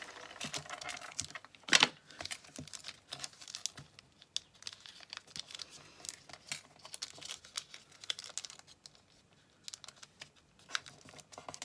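Paper crinkling and rustling as a small square of paper is folded and creased by hand into an origami lantern, with one sharp crackle about two seconds in.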